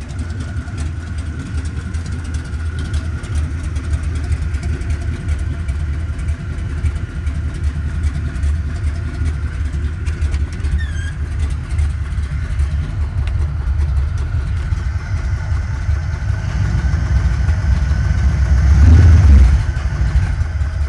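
1968 Firebird engine in a 1972 Pontiac LeMans idling with a low, uneven rumble and a thin steady whine over it. Near the end it revs up, loudest about two-thirds of the way past the middle, then falls back to idle.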